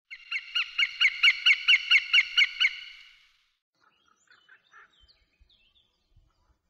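Juvenile northern goshawk calling: a rapid, even series of about eleven sharp, ringing notes, about four a second, that fades out after about three seconds. Faint small-bird chirps follow.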